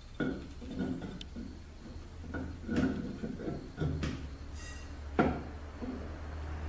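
Heavy metal automatic-transmission pump parts clinking and knocking against each other as they are handled and fitted together on a bench. There are about half a dozen separate knocks, the sharpest one about five seconds in, over a steady low hum.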